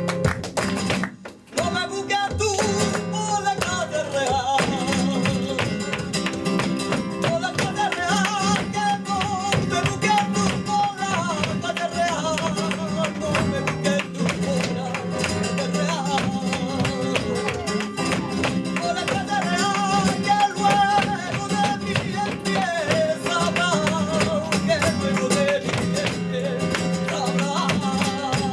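Live sevillanas: flamenco guitar strumming with a cante singer's ornamented, wavering vocal line, over a dense run of sharp rhythmic percussive hits. The music breaks off briefly about a second in and then starts again.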